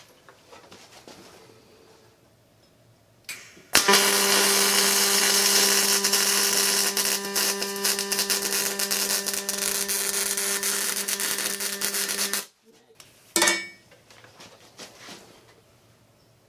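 Pulsed MIG welding arc from a Miller Multimatic 255: a brief strike a little after three seconds in, then a steady buzzing drone of about eight seconds while a bead is laid, cutting off abruptly, followed a second later by a short second burst of arc.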